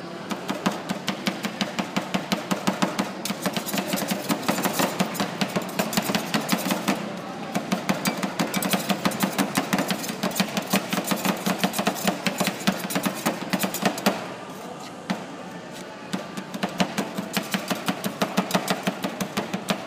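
Two metal spatulas chopping on the frozen steel plate of a fried ice cream counter, working the ice cream and cookie pieces: a quick run of sharp clacks, about five a second. The chopping stops for a couple of seconds past the middle, then starts again.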